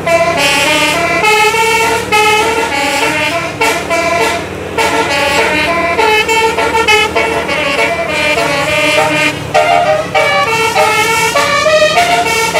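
A bus's telolet musical air horn playing a quick tune of short notes that step up and down in pitch, over the steady low hum of the bus's engine.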